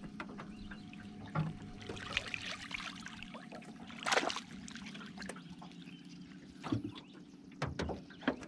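A hooked crappie splashing and thrashing at the water's surface beside a small fishing boat as it is reeled in, with one loud splash about four seconds in. A few short knocks follow near the end, over a steady low hum.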